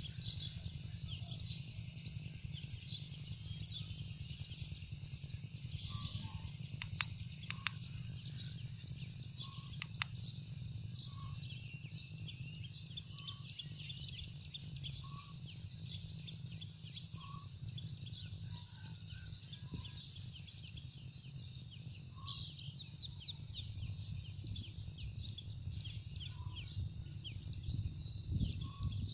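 Sparrows chirping densely and without a break, many quick chirps overlapping, over a steady high-pitched tone.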